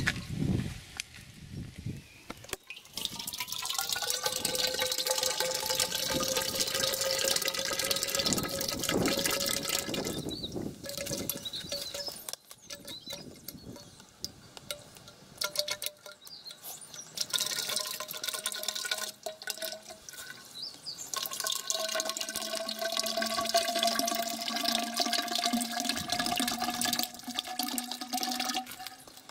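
Cooking oil poured from plastic bottles into a tall square steel-tube quench tank: a steady splashing pour with a hollow ringing tone that slowly rises in pitch as the tube fills. The pour stops and starts a few times.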